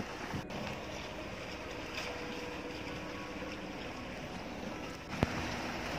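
Steady hum of a small fishing boat's motor with wind and water noise, and a single short knock about five seconds in.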